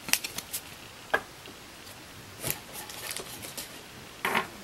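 Trading cards and foil packs being handled on a tabletop: scattered light clicks and rustles.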